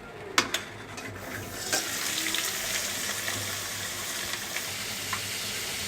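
Onions dropped into hot oil in a pan: two quick knocks about half a second in, then the oil starts sizzling and settles into a steady sizzle.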